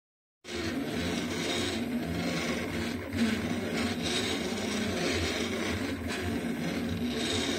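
Delta-style 3D printer running mid-print, its stepper motors and fans giving a steady mechanical whirr with a low hum as the print head moves around the rim. The sound starts abruptly just under half a second in.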